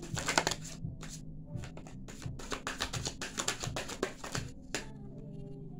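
A deck of tarot cards being shuffled by hand: quick runs of card flicks and taps, thinning out near the end, over faint steady background music.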